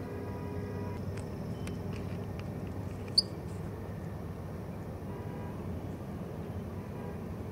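Steady low outdoor rumble of background noise, with a single short, sharp high-pitched chirp about three seconds in.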